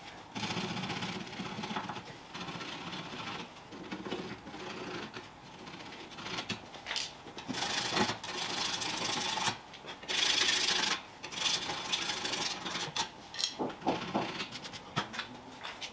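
Scraping and rubbing of a hand tool on metal in irregular strokes: grime being cleaned off the rear axle beam's steel mounting plate of a Mk2 Scirocco.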